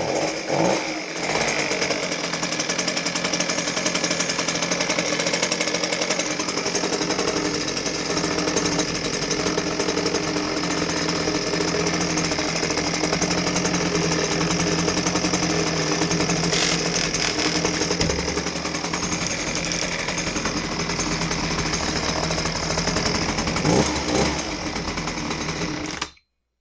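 Husqvarna 125B handheld blower's small two-stroke engine running with a rattle, speeding up briefly near the start and again near the end, then cutting off abruptly. The mechanic suspects the rattle comes from the impeller area, having seen cracked impellers make this kind of rattle.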